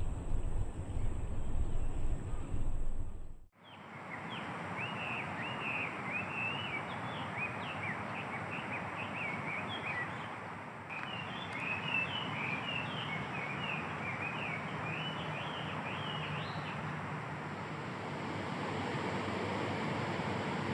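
A low rumble for the first few seconds that cuts off abruptly. Then small birds chirp in quick, short, high notes for about thirteen seconds over a steady hiss.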